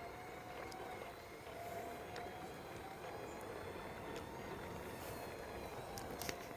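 Steady hum of distant road traffic, with a faint wavering drone and a few light clicks, the sharpest near the end.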